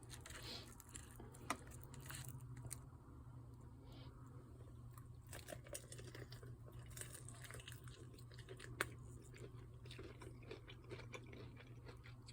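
Crispy breaded chicken wings being bitten and chewed, with faint, irregular crunches and small clicks and a couple of sharper crunches.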